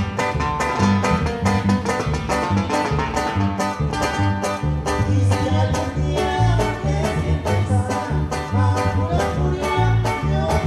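Regional Mexican dance music played by a live band: plucked guitar lines over a quick, steady bass-and-drum beat, played loud.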